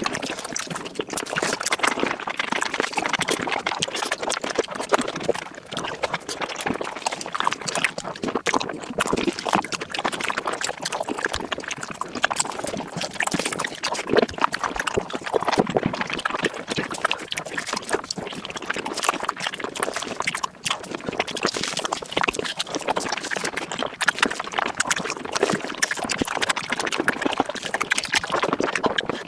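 Close-miked eating sounds played back sped up: a dense, unbroken stream of fast chewing clicks, crunches and wet slurping noises.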